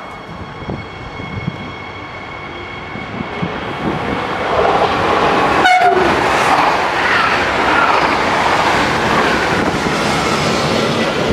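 Double-deck regional electric train passing close by at speed: rushing wheel and air noise swells about four to six seconds in and stays loud. Steady high tones sit under the first few seconds.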